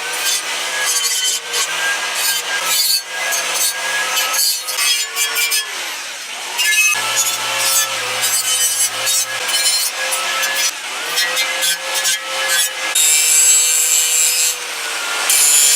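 Handheld electric power tool deburring the cut ends of metal tubing to prepare them for welding: a continuous rough grinding scrape over a motor whine that dips in pitch several times as the tool bites into the metal and then picks back up.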